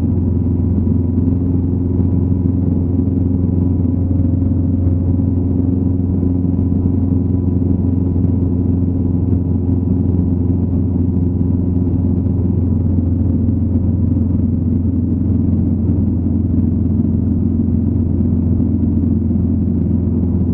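Steady, unchanging drone of a light aircraft's piston engine and propeller in cruise, heard from inside the cockpit.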